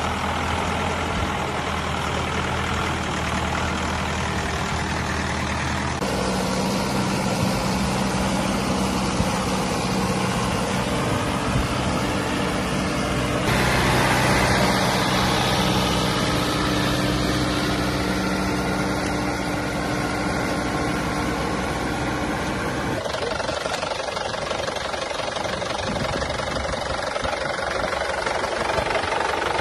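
Tractor's diesel engine running steadily as it drives through a flooded, muddy field, its sound changing abruptly three times where shots are cut together.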